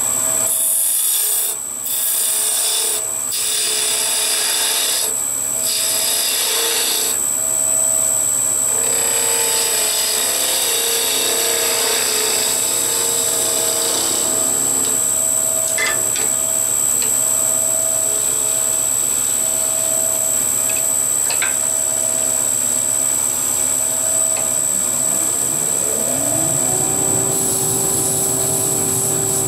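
Wood lathe running with a steady motor hum while a hand-held turning tool cuts and scrapes the end of a spinning wooden blank in uneven passes. Near the end the motor's tone rises in pitch over a couple of seconds and holds there as the lathe speeds up.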